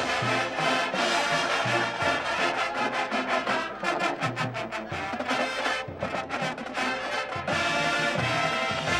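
Marching band playing at full volume: brass section carrying the melody over drums, with regular low bass-drum hits.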